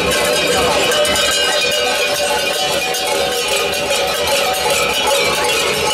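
Many large cowbells clanging together without a break, worn by masked carnival figures and shaken as they walk in procession.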